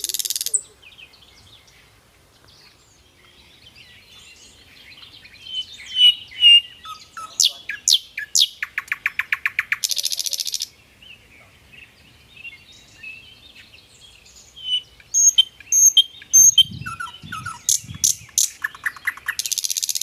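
Several birds chirping and whistling, with quick sharp whistles and twittering notes throughout. A loud, harsh, rapidly rattling call breaks in about nine seconds in and again near the end.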